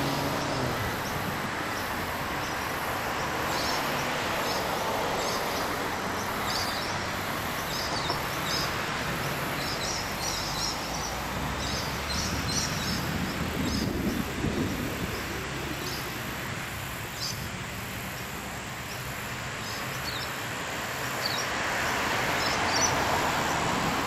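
Outdoor ambience: a steady hiss of distant traffic with small birds chirping briefly every second or so. The traffic noise swells louder near the end.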